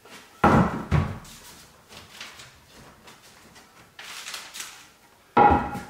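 Wooden 2x4 trim board handled and set against the wall beside a window: two knocks about half a second in, then a short scrape about four seconds in as it slides into place.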